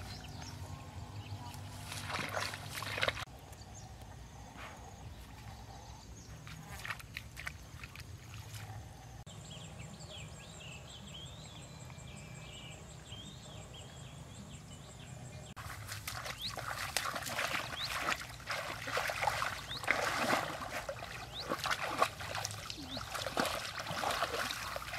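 Splashing, sloshing steps through shallow water in flooded grass as a dog wades along. In a quieter middle stretch, high chirping calls sound over a steady fine ticking.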